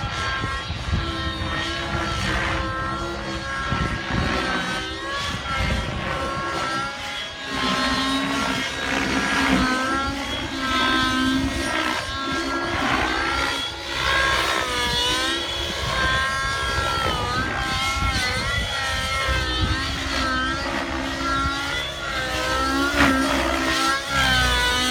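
Synergy N7 radio-controlled helicopter flying aerobatics overhead, its engine and rotor whine rising and falling in pitch continuously with the manoeuvres.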